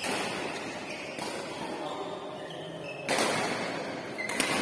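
Four sharp hits, a second or two apart, echoing in a large hall over a steady background din, the loudest about three seconds in.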